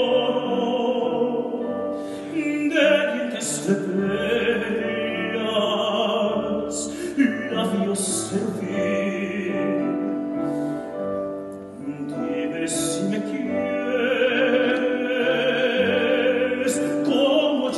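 A tenor singing a Spanish-language song in operatic style with keyboard accompaniment. Near the end he holds long notes with wide vibrato.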